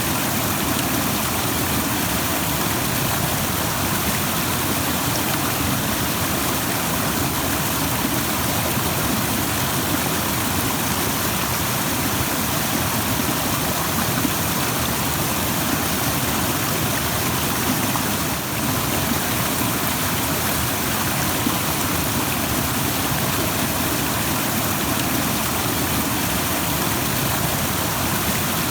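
Rushing stream: a steady, even rush of running water.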